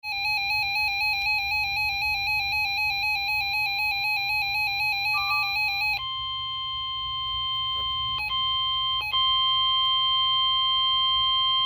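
Emergency Alert System attention tones for a severe thunderstorm warning. A fast-warbling electronic alarm tone plays for about six seconds, then switches to a steady, single-pitched high tone that drops out briefly twice, typical of the NOAA Weather Radio warning alarm.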